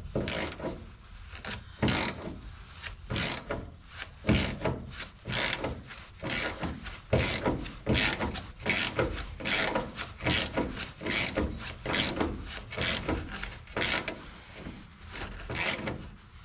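Hand ratchet on a long socket extension backing out a Triumph TR3 body bolt that has just broken loose: rasping ratchet strokes about once a second, coming quicker in the second half.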